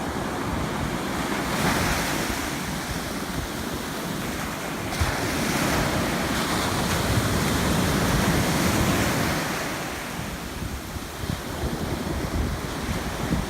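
Ocean surf washing onto the beach, swelling about two seconds in and again for several seconds in the middle, with wind rumbling on the microphone.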